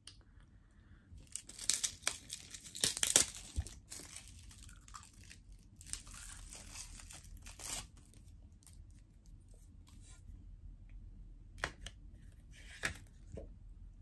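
Plastic packaging crinkling and being torn, in irregular bursts that are loudest in the first few seconds, with a couple of sharp tearing sounds near the end.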